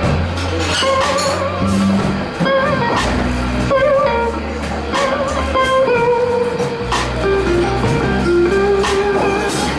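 Blues band playing a slow blues instrumental: an electric lead guitar plays sustained, bent notes with wide vibrato over bass guitar and drums.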